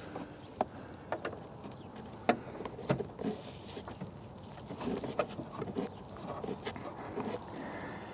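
Scattered light clicks, knocks and small rattles of hand work as a tail light assembly is seated back into the Jeep and fastened with hand tools, with a denser run of small taps past the middle.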